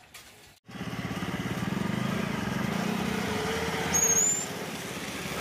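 Vehicle engine running steadily, starting suddenly under a second in, as a Tata school bus approaches close by; a short high squeak sounds about four seconds in.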